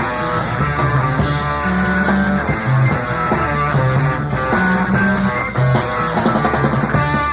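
Live progressive rock band playing: electric guitar over a moving bass line and drums, the music continuous and full throughout.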